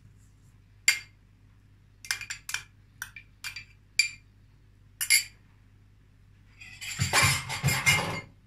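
Metal spoon clinking and scraping against a small glass cup, a string of sharp taps as the thick dressing is scraped out, followed near the end by a longer, louder clatter.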